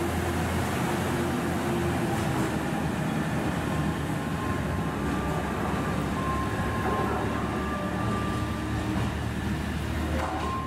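KiHa 189 series diesel multiple unit pulling out of the station and moving away: a steady low diesel engine drone with the rumble of wheels on rail.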